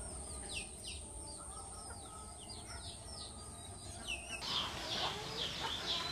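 Birds chirping: a string of short, high, falling calls, several a second, over a faint steady high-pitched whine that stops about four seconds in.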